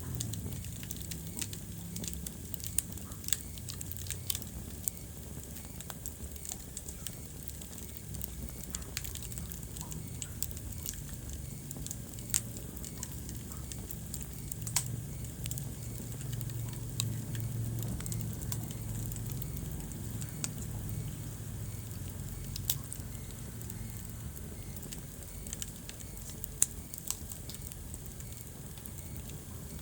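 Wood fire crackling in a fireplace: scattered sharp pops and snaps, a few louder than the rest, over a steady low rumble of the flames.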